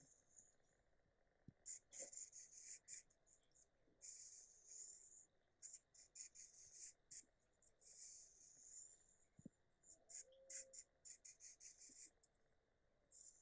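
Faint, high-pitched insect chirping, in buzzy trills and quick runs of pulses that start and stop throughout, typical of crickets or bush-crickets.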